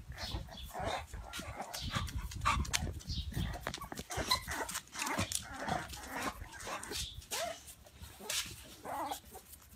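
American Bully puppies yipping and whining in short, irregular cries as they play, with small clicks and scuffles among them.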